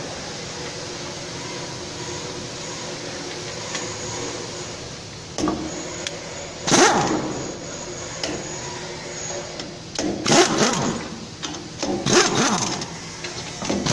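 Pneumatic wrench on an air hose tightening the socket-head bolts that clamp a stationary cutting blade. It runs in several short bursts, each falling in pitch as it winds down, starting about five seconds in over a steady background hum.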